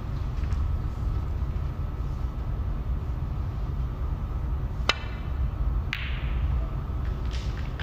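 Snooker shot: a sharp click as the cue ball is struck or hits an object ball, then a second click about a second later as the balls meet again, over a steady low hum in the venue.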